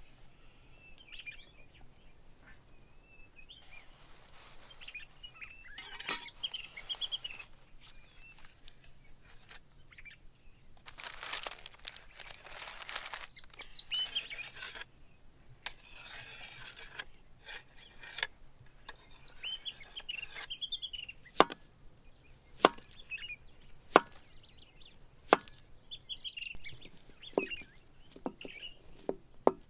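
A steel knife blade stroked against a hand-held sharpening stone, scraping for a few seconds at a time. Later the knife slices a red onion on a wooden cutting board, a string of sharp knocks about a second apart, the loudest sounds here. Birds chirp throughout.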